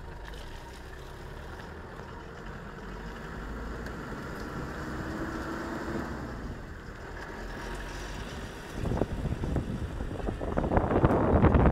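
Car driving slowly along a rough dirt and gravel road: steady low engine and tyre noise. From about nine seconds in, a louder, irregular, choppy noise takes over.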